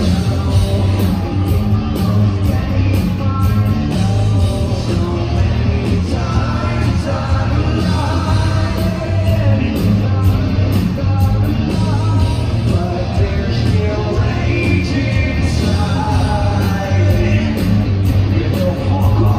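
Live hard rock band playing: a male singer's vocals over electric guitar and a steady drum beat.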